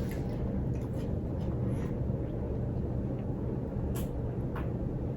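Steady low background rumble, with two faint clicks about four seconds in.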